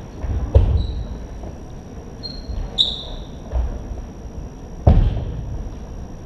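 Fencers' shoes squeaking and thudding on a wooden sports-hall floor as they move in a bout, with two heavier thumps, about half a second in and near five seconds in, the second the loudest.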